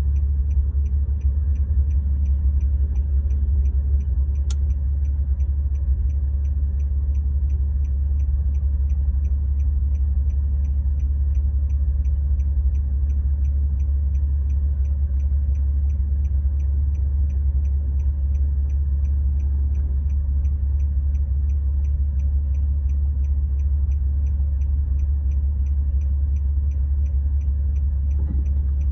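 Inside a car idling at a stop: a steady low engine and cabin hum, with the turn-signal indicator ticking evenly throughout. One sharp click sounds about four and a half seconds in.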